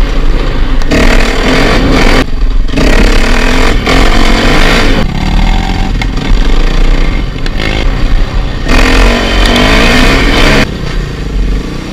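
KTM 450 dirt bike's single-cylinder four-stroke engine being ridden, the throttle opened and closed every second or two so the engine note rises and falls. It drops back to a lower level about ten and a half seconds in.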